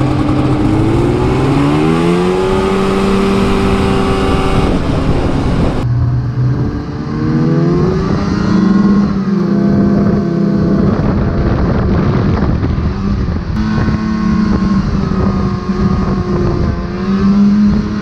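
Yamaha VK 540 snowmobile's two-stroke engine revving up and holding speed under way, its pitch rising near the start and again about halfway through, with wind buffeting the microphone.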